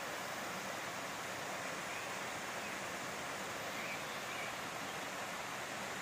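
Steady rushing and splashing of a small rocky stream cascading over stones, a rain-fed hillside stream running with the start of the monsoon.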